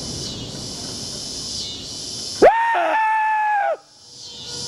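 The low rumble left by the bridge demolition blast dies away under a steady high chorus of insects. About halfway in, a loud high call starts: it glides up, holds for about a second and falls away. The same call comes again near the end.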